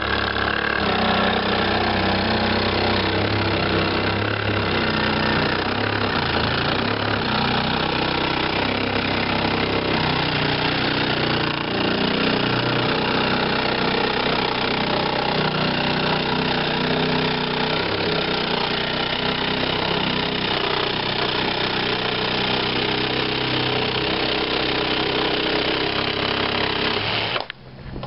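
Ryobi cordless jigsaw sawing steadily through a pine board, its motor and reciprocating blade running without a break for nearly half a minute, stopping suddenly about a second before the end.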